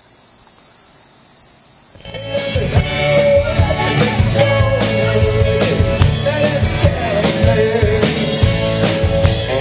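Faint hiss, then about two seconds in rock music starts: a band with a drum kit beating steadily about twice a second.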